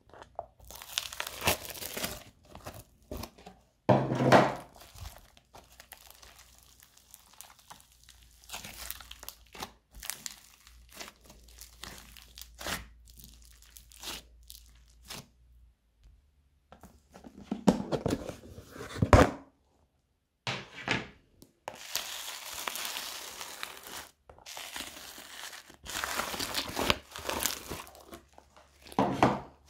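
Hands squeezing and kneading thick glittery slime mixed with soft pink add-ins, giving a run of crackly, tearing squishes in irregular bursts with short pauses, the loudest about four seconds in and again near nineteen seconds.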